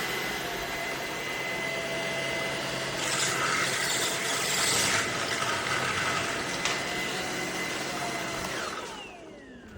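Tineco Pure ONE S11 cordless stick vacuum running steadily, a little louder for a couple of seconds in the middle, then switched off near the end, its motor winding down with a falling whine.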